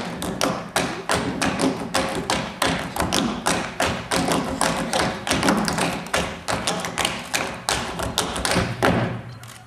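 Tap shoes of a line of tap dancers striking a stage floor in a fast, dense rhythm of sharp taps, stopping just before the end.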